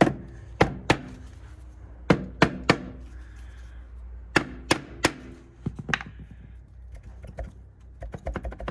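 Sharp knocks on a 2011 Kawasaki ZX6R's engine-side stator cover, struck to break it loose: three quick strikes, then a pause, repeated three times, each with a short ring. Lighter clicks and rattles follow near the end. The cover is stuck, held on by the strong magnet of the alternator rotor behind it.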